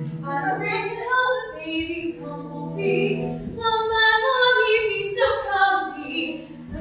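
Women singing together, holding long notes and moving between them.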